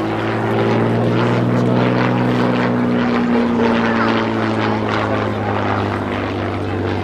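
Hawker Fury I biplane's Rolls-Royce Kestrel supercharged V12 engine and propeller running as it flies past in a display, growing louder over the first second and then holding steady, its pitch rising slightly and easing back near the middle.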